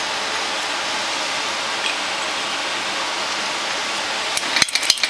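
A steady hiss, then about four and a half seconds in a quick run of sharp metal clicks and clinks: a steel socket being set on a bearing in an aluminium rear differential case under a shop press ram.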